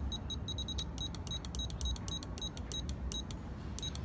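Futaba 14SG radio transmitter beeping with each step of its digital trim switch as it is pressed repeatedly: a rapid string of short high beeps with a brief pause near the end, over a steady low rumble.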